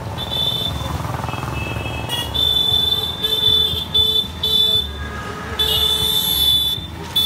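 Street traffic rumble, then a high-pitched electronic vehicle horn beeping: four short beeps from about two seconds in, then a longer one about six seconds in.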